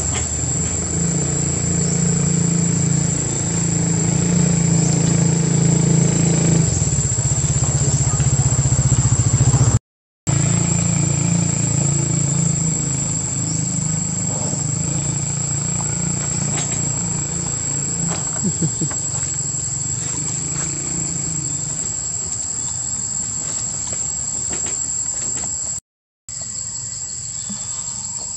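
A steady, high-pitched insect drone with a low motor hum beneath it; the hum fades out near the end. The sound breaks off for a moment twice.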